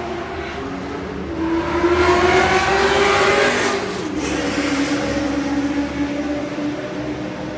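A race-track car's engine accelerating, its pitch climbing and growing louder, then dropping abruptly about four seconds in and running on at a lower, steadier pitch.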